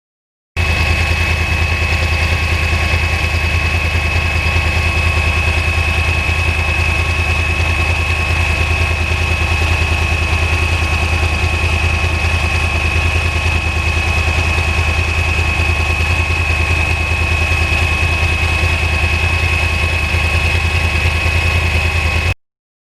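2009 Yamaha R1's crossplane inline-four engine idling steadily, with an even pulse and a faint steady high whine over it. It cuts in about half a second in and cuts off suddenly near the end.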